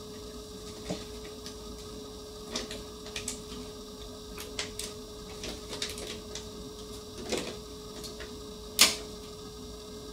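Scattered light clicks and taps at irregular intervals, with one sharper, louder click about nine seconds in, over a faint steady hum.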